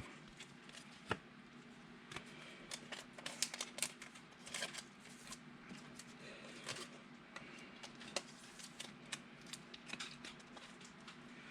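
Trading cards being handled and sorted by hand: soft, scattered clicks and rustles of card stock, over a faint steady hum.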